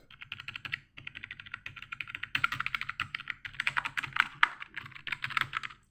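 Keys of a cheap computer keyboard being typed on rapidly, a fast run of clicks with a short pause just under a second in, getting louder from about halfway.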